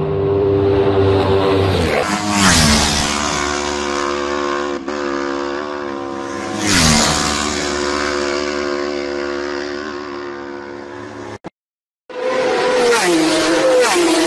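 Racing motorcycles going past at full speed on a closed road. Each engine note drops sharply in pitch as the bike goes by, two of them about two and seven seconds in. The sound cuts out briefly near the end, then another bike approaches and passes.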